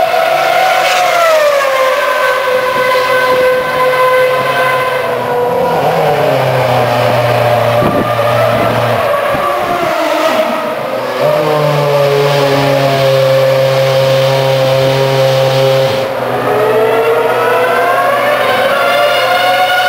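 Formula 1 cars' 2.4-litre V8 engines running at high revs. The pitch drops about a second in, holds steady for long stretches and climbs again near the end. A lower steady drone comes and goes in the middle.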